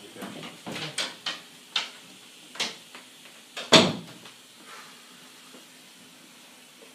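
A run of sharp knocks and bangs, about seven in quick succession, the loudest a heavy thump about four seconds in.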